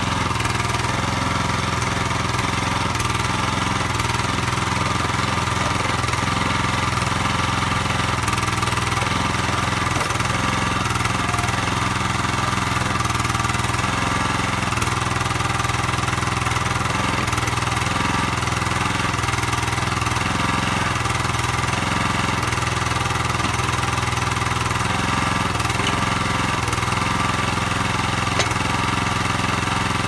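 Small engine running at a steady speed while a Kellfri towable backhoe digs soil with its bucket.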